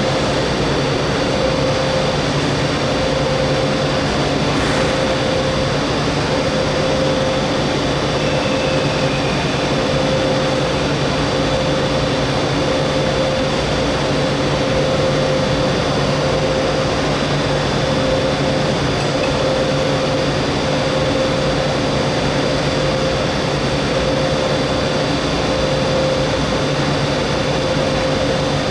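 Train noise running steadily: a continuous mechanical hum with a steady whine pulsing about once a second, unchanging throughout.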